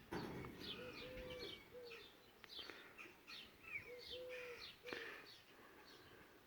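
Birds chirping steadily, with a few short, low cooing notes in ones and pairs, and a couple of faint clicks.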